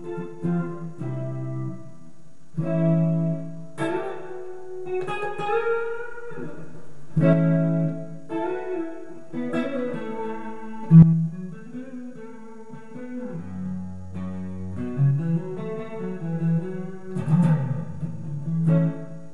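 Fender Players Telecaster electric guitar played on its neck pickup with chorus on: chords and single notes, with bent notes a few seconds in.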